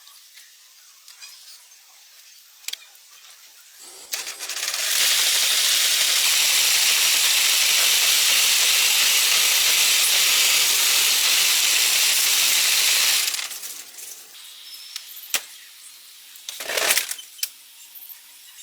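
A few light metallic clinks, then a loud, steady hiss that starts about four seconds in and cuts off after about nine seconds. A short, sharper hiss comes near the end.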